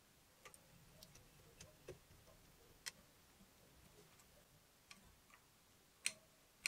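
Small clicks and light taps of a metal carburetor being handled and fitted onto a miniature inline-four engine, scattered and faint, with a couple of sharper clicks near the end.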